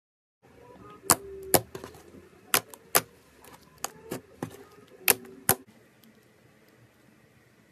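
Glitter slime squeezed and pressed by hand, giving sharp, wet popping clicks as air pockets in it burst, about nine over five seconds, with soft squelching between them.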